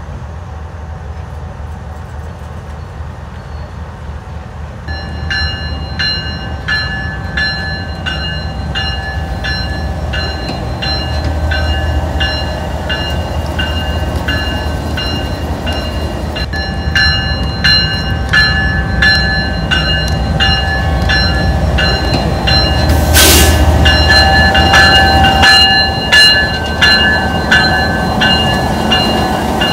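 General Electric GEU-20 diesel-electric locomotive rolling slowly past, its diesel engine rumbling and growing louder as it draws near. From about five seconds in there is rhythmic metallic clicking with a ringing tone from the wheels on the rails, and a short burst of hiss about three-quarters of the way through.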